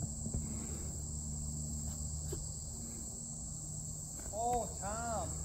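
A steady, high-pitched insect chorus. About four seconds in comes a brief pitched call of a few rising-and-falling notes.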